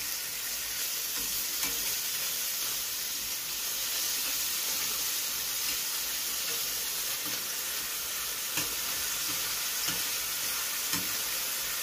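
Slices of sucuk (Turkish sausage) sizzling steadily in hot oil in a stainless steel frying pan. A few light clicks of metal tongs against the pan come as the slices are turned.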